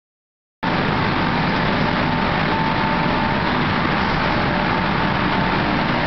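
Steady industrial machine noise, a dense even hiss with a faint hum, from a stainless-steel microwave tunnel drying line running. It starts abruptly under a second in.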